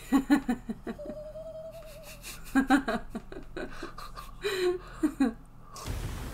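People laughing in several short bouts of chuckles.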